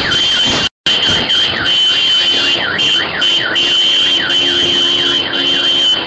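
Car alarm going off: a fast up-and-down wail, about three sweeps a second, over a steady high tone, set off by vehicles sliding on ice into parked cars. The sound cuts out briefly a little under a second in, and a lower steady tone joins about two seconds in.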